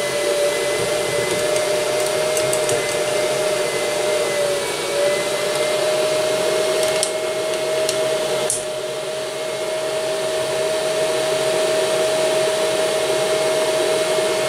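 Small electric cooling fan running steadily with a high whine, which dips slightly in pitch about four or five seconds in. A few faint clicks come from a spanner working on the hot-end nozzle.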